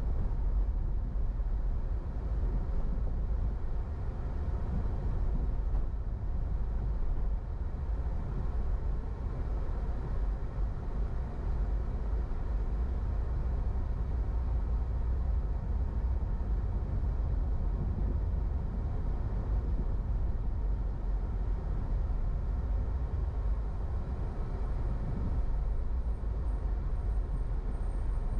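Steady low rumble of a car driving slowly along city streets: engine and tyre noise with no sharp events.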